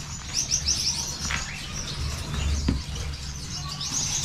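Gouldian finches chirping in quick runs of short, high calls, about a second in and again near the end, over a steady low hum.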